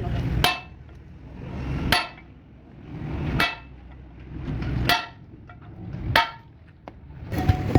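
Heavy hammer blows on metal, five strikes about one and a half seconds apart, each ringing briefly.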